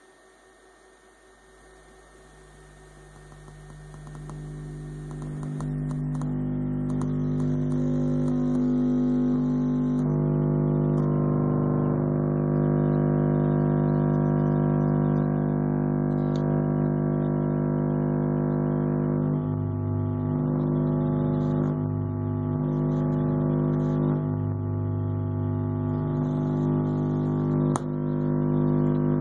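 Car-audio subwoofer playing a 50 Hz test tone: a steady hum with many overtones, swelling up over the first five seconds or so and then holding loud. In the second half a lower part of the hum drops in and out several times.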